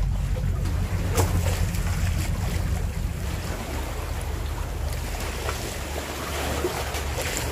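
Wind buffeting the microphone with a steady low rumble, over sea waves washing against concrete breakwater tetrapods. A light click about a second in.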